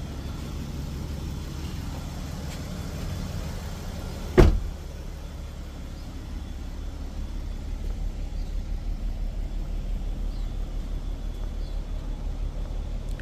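A 2009 Skoda Superb's engine running at idle as a steady low hum, with a single loud sharp thump about four seconds in. From about halfway a low, even pulsing joins the hum.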